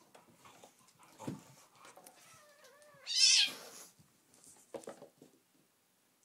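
Bengal kitten crying out during a rough play fight. A wavering cry starts about two seconds in and ends in a loud, high-pitched burst, with a few thumps of scuffling before and after.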